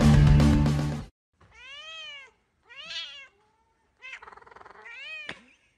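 Background music that cuts off about a second in, followed by a cat meowing three times, each meow rising and then falling in pitch.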